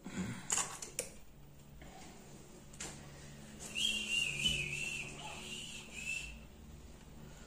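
A few light clicks, then from about four seconds in a high, wavering whistle lasting about two and a half seconds.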